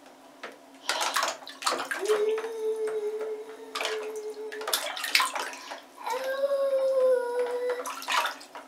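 A toddler's hand splashing in a shallow plastic basin of water, with several sharp splashes. Two long, steady vocal tones from the toddler, each about two to three seconds; the second falls slightly at its end.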